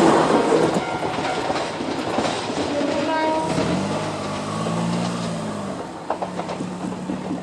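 Toyama Chihō Railway 14760-series electric train running away past the level crossing, its wheel and track noise fading. A short low hum rises and falls about four seconds in.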